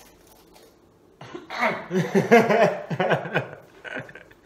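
A man laughing in a run of short pitched bursts, starting about a second in.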